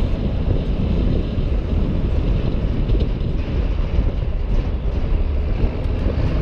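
Steady wind and road noise of a pickup truck driving on a highway, picked up by a camera mounted outside the truck, mostly low-pitched and constant.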